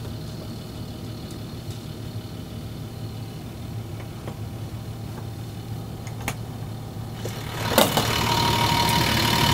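Caterpillar diesel engine idling, heard as a steady low hum through the closed engine access hatch under the bed, with a few sharp clicks as the hatch is unlatched. Near the end the hatch lifts and the engine comes through louder and fuller.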